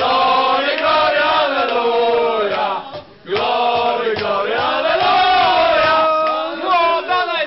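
A group of people singing together in unison, long sung phrases with a short break for breath about three seconds in before the next line starts.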